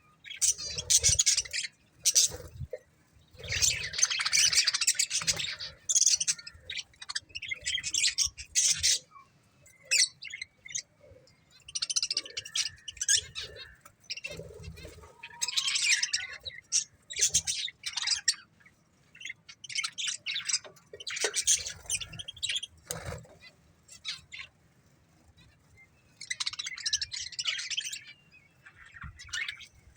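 A pair of budgerigars chirping and chattering in short, irregular bursts of high warbling calls, with brief pauses between.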